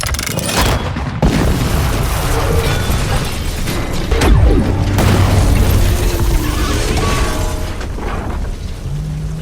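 Dramatic film music layered with heavy booms and crashing sound effects, with sudden hits at the start and about a second in.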